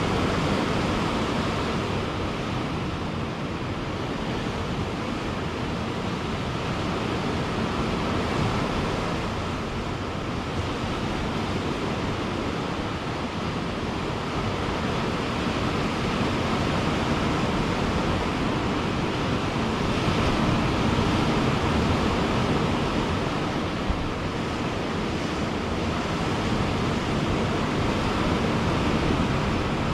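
Ocean surf breaking and washing ashore in a continuous rush, its loudness swelling and easing gently every several seconds.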